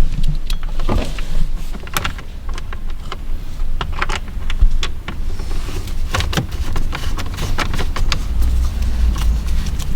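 Steering wheel nut being cranked down with tools: irregular sharp clicks and knocks, with a low rumble that grows heavier near the end.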